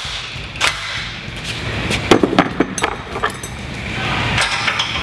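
Sharp metallic clicks and knocks as a stop bolt is tightened into a steel sprayer-boom bracket with a cordless drill, with a quick run of several knocks about two seconds in.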